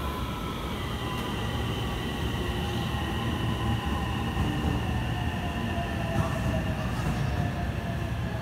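JR West 227 series electric train running along the platform and slowing down. Its motor whine falls steadily in pitch over a low rumble of wheels on rail.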